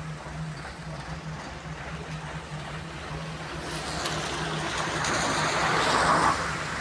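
A heavy machine's engine running with a steady low drone. Partway through, a broad rushing noise builds and peaks near the end.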